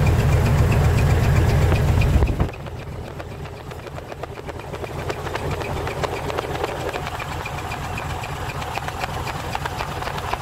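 Heavy truck's diesel engine and exhaust running loud, then about two and a half seconds in it drops suddenly to a quieter, steady idle with a fast clatter.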